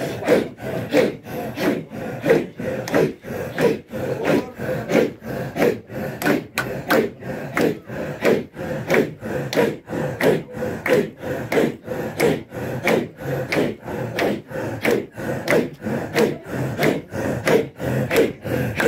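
A group of men performing a Sufi 'imara dhikr: a chant breathed hard from the throat in unison, pulsing two or three times a second.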